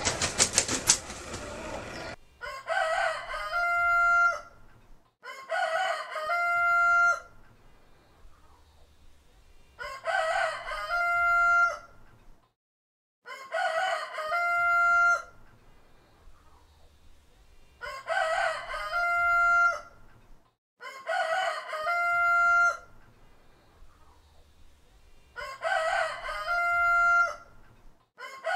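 Rooster crowing about seven times, one crow every three to four seconds, each ending in a long held note. At the very start, a rapid flapping of wings.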